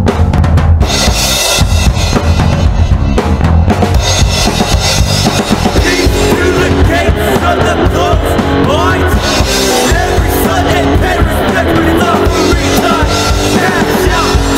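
Hardcore punk recording, with the drum kit to the fore. Cymbals crash in about a second in.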